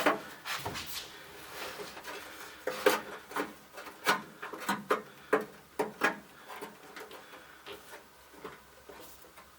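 Irregular light clicks, knocks and rubbing as a new headlight switch and its wiring harness are pushed back up into their hole in the dash of a 1964 Dodge D100. The handling noises come in quick succession in the middle and thin out toward the end.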